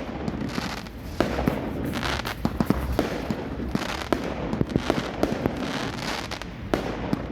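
Fireworks going off: a dense run of cracks and pops over repeated bursts, with no pause.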